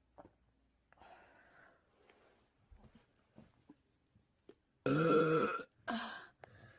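A loud, drawn-out burp about five seconds in, followed by a shorter burp, after a few seconds of faint small clicks. The burps are brought up by the carbonation of beer.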